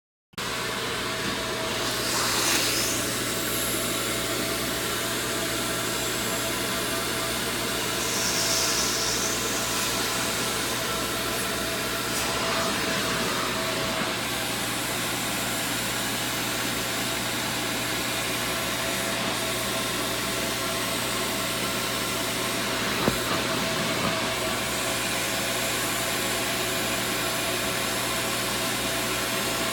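A power washer running steadily, an even machine noise with a constant hum and small swells now and then.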